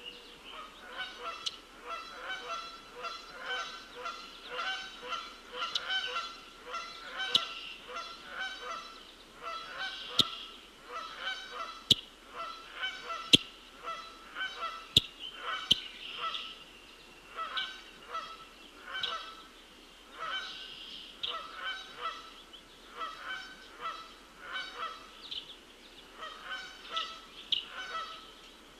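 Birds calling: a long, steady run of short repeated calls, roughly three a second, with a few sharp clicks in the middle.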